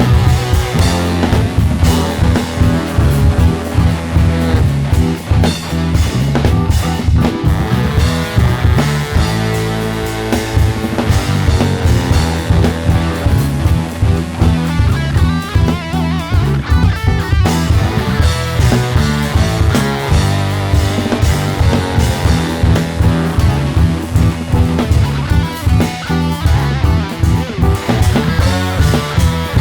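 Rock band playing live: guitar over a drum kit keeping a steady beat.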